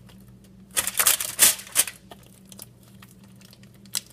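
Slime being mixed: a short run of loud, wet crackling squishes about a second in, with scattered small clicks around it.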